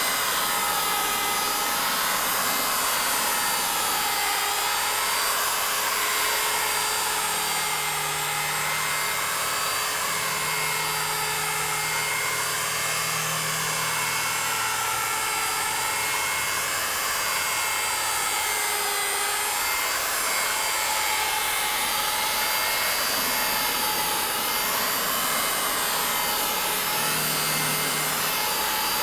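Electric rotary polisher running at about 2,500 RPM with a twisted-wool mop, buffing compound into a hard gelcoat composite panel under light pressure. A steady whine whose pitch dips and rises every couple of seconds as the mop is swept across the panel.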